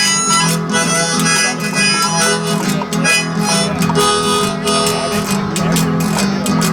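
Live country-blues music: a harmonica playing an instrumental break over strummed guitar accompaniment, between sung verses.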